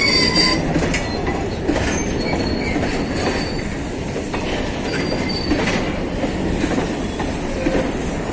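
Train wheels running on rails: a steady rumble and rattle, with short high-pitched wheel squeals now and then.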